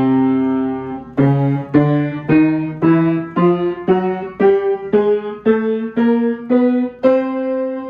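Acoustic piano playing octaves in a newly tuned section: an octave held for about a second, then octaves struck about twice a second stepping upward note by note, ending on a held octave.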